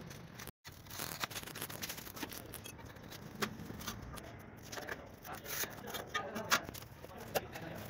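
Light scrapes and scattered clicks of glazed ceramic wall tiles being scored and slid against each other on cardboard, with a few sharper clicks in the second half.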